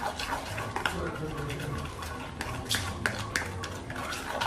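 Metal spoon stirring thick chocolate brownie batter in a plastic bowl, with repeated small clicks and scrapes of the spoon against the bowl.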